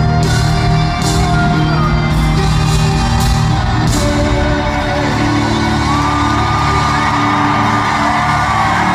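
Live pop-rock band playing in an arena, heard from high in the stands. There are cymbal crashes about once a second at first, and a long held high note from about six seconds in.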